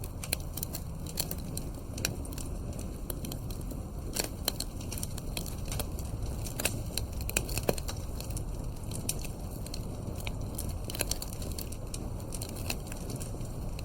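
Wood fire crackling and popping in a fireplace: irregular sharp pops over a steady low rumble of flame.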